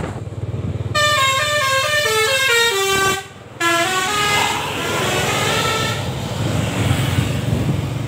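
Basuri V3 multi-tone 'telolet' bus horn playing a quick melodic run of notes stepping down in pitch. It breaks off briefly about three seconds in, then plays a second run. A bus engine rumbles underneath.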